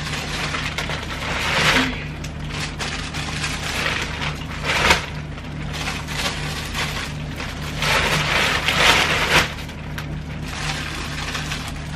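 Plastic carrier bag and plastic-wrapped packets rustling and crinkling as they are handled, in several bursts, over a steady low hum.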